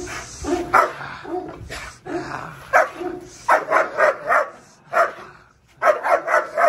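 Large dog barking aggressively while lunging on its leash in guard training: about a dozen loud, sharp barks, some coming in quick runs of three or four.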